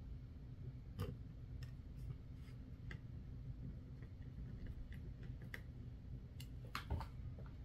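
Scattered light clicks and ticks of a small screwdriver driving tiny screws through a Raspberry Pi 4B circuit board into its plastic case, the loudest pair near the end.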